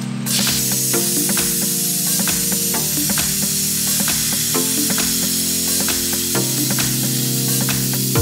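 Plasma cutter hissing steadily as its arc cuts a circle through steel plate, starting just after the beginning. Background music plays underneath.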